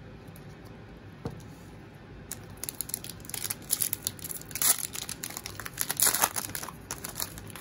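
Foil wrapper of a trading-card pack being torn open and crinkled by hand: a run of sharp crackling rustles starting about two seconds in, loudest in the second half.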